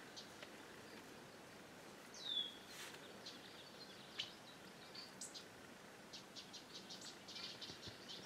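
Faint bird calls over quiet outdoor background: one high call sliding downward about two seconds in, a few scattered ticks, then a rapid dry chatter of high ticks, about seven a second, near the end.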